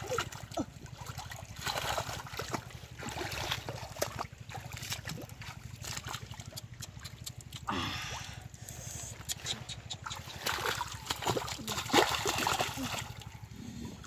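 Hands splashing and sloshing in shallow muddy water while groping in the mud for catfish, with irregular splatters and drips.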